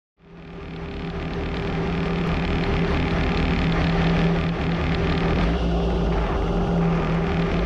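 BMW racing car's engine idling steadily, fading in over the first couple of seconds.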